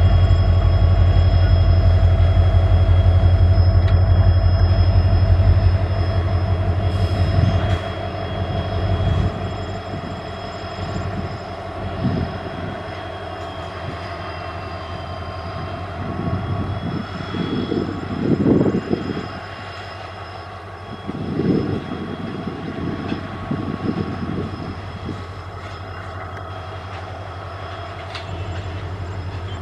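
WDG4 diesel locomotive's 16-cylinder two-stroke engine working hard as it accelerates a goods train: a loud low throb with a steady high whine. About six seconds in the engine sound drops away, leaving the rolling of the wagons with uneven rumbles and knocks while the whine carries on.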